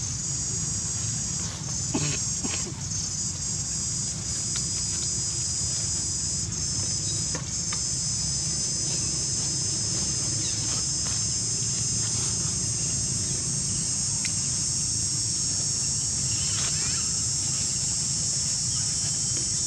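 Steady, high-pitched insect chorus droning without a break, over a low rumble, with a few brief faint clicks.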